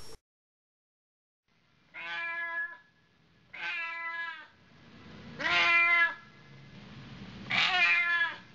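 Domestic cat meowing four times, roughly every two seconds, each meow a drawn-out cry lasting under a second, the last two louder.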